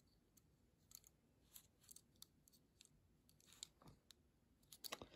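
Near silence with faint, scattered clicks and light taps from fingers handling a small die-cast metal and plastic toy truck, the clicks coming closer together near the end.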